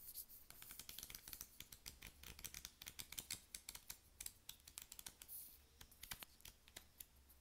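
Pages of a paper flip book flicking off the thumb one after another: a fast, faint run of dry paper ticks that thins out near the end.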